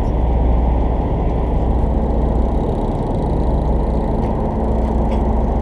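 A charter fishing boat's engine running, a steady low rumble with a constant hum.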